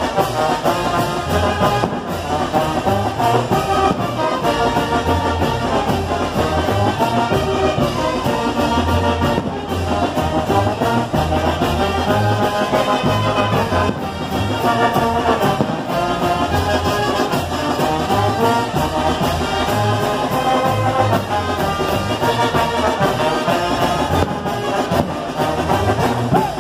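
Mexican brass band (banda de viento) playing live: trombones, sousaphone, clarinets and saxophones carrying a melody over drums with a steady beat.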